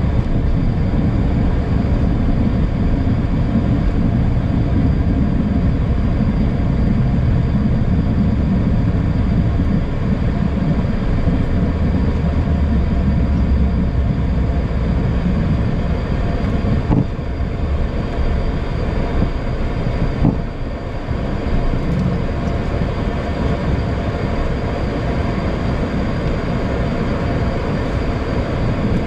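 Cockpit noise of a HondaJet during its landing rollout and turn-off: a steady low rumble of the wheels on the runway under the hum of its twin GE Honda HF120 turbofans. The rumble eases as the jet slows, and two sharp clicks come a little past halfway.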